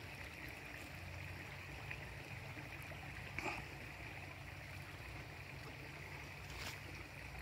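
Faint, steady outdoor background noise with a low hum and a thin, steady high hiss. There are two small clicks, one about halfway through and one near the end.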